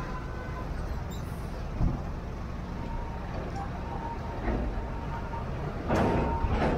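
Car driving slowly in heavy traffic: a steady low rumble of engine and road, one short thump about two seconds in, and a louder burst of hiss near the end.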